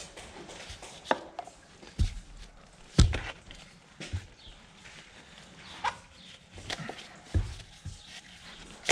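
Irregular knocks, clicks and thumps of hands-on work, with the loudest hit about three seconds in.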